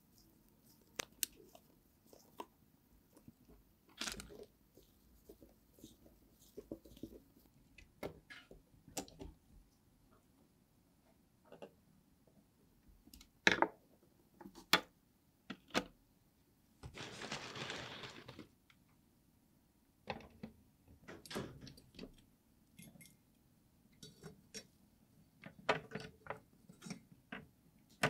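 Scattered clicks, taps and small metallic handling noises as a portable Sony TV's tuner bracket, chassis and picture tube are worked on and refitted by hand, including a screwdriver turning a screw near the start. About two-thirds of the way in comes one hiss-like noise lasting over a second.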